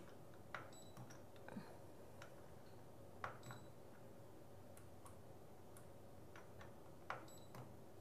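Faint, irregularly spaced clicks from the selector dial of a Cuisinart Chef's Convection Toaster Oven as it is turned and pressed to set temperature and cooking time. Twice a short, faint high tone comes with a click.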